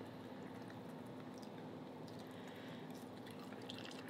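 Faint wet chewing and mouth sounds of people eating saucy food by hand, with scattered small ticks, over a steady low hum.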